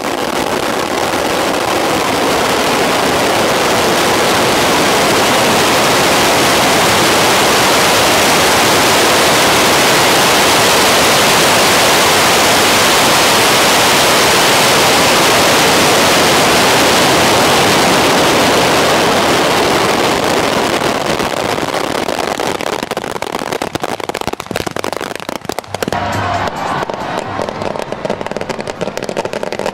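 A mass launch of fireworks rockets fired together: a dense, continuous hiss and crackle for about twenty seconds that then thins into scattered cracks and pops.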